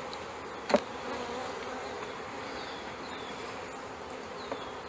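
A honeybee colony buzzing steadily around an open hive as it is being worked. A single sharp knock about a second in.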